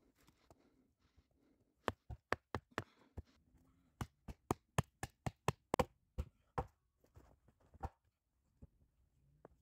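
Hatchet chopping a small branch: about twenty sharp knocks of the blade biting into wood, two or three a second, starting about two seconds in, with a brief pause, then a second faster run that thins out near the end.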